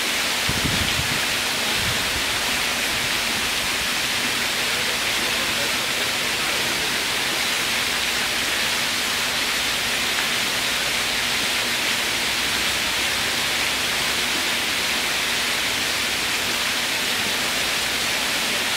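Water cascading steadily from an artificial rock waterfall into a hot-spring pool: an even rushing hiss of falling water. A couple of brief low thumps near the start.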